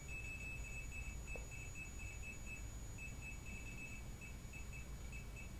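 EMF detector beeping a faint, high tone in an uneven run of short and longer beeps with short pauses, which the investigators take for Morse code.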